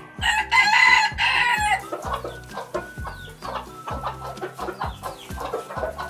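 Rooster crowing once, one long call in the first two seconds, followed by hens clucking.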